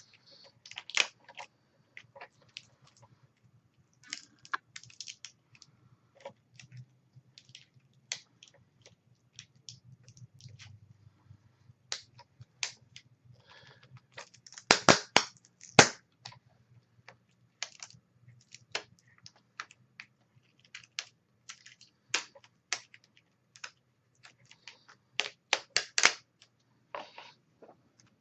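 Irregular small clicks and taps of hands working on a laptop's screen assembly and its plastic parts, with a louder cluster of clicks about halfway through and another near the end. A faint low hum runs underneath.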